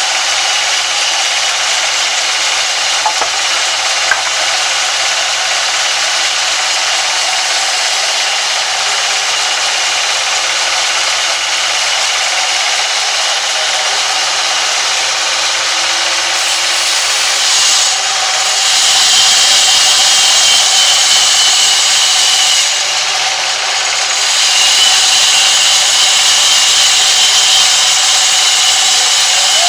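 Large vertical band saw ripping a thin board off a squared timber: a loud, steady hissing cut through the wood. It gets louder for a few seconds about two-thirds of the way in, and again near the end.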